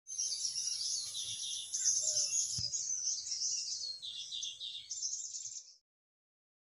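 Birds chirping in a dense, rapid chorus, with a thin steady high whine that ends at a faint click about two and a half seconds in. The sound cuts off short of six seconds.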